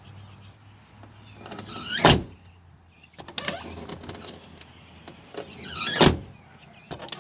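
A Jeep Cherokee XJ door being swung shut twice, each time a rising rush ending in a loud slam. In between come the clicks of the push-button outside handle and latch as the door is opened again.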